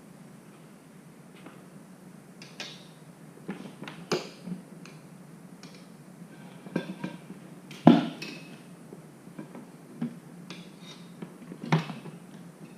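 Scattered metallic clinks and knocks from tools and parts being handled during a motorcycle front tire change, the loudest about eight seconds in.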